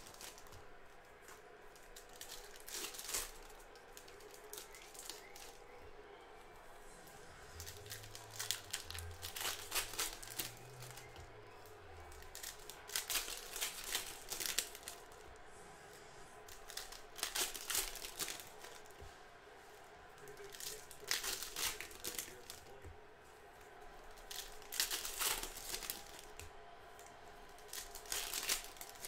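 Plastic wrapping crinkled and torn by hand in short bursts every few seconds, as sealed trading-card boxes and packs are unwrapped.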